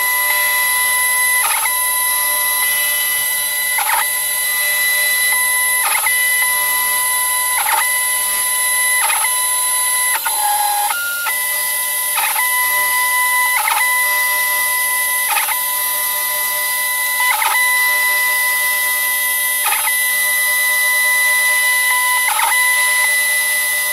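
Stepper motors of a CNC-converted BF20L mill whining in steady tones as the table feeds through a cut. The pitch changes briefly about every couple of seconds as the move changes, and a few different tones sound about ten seconds in.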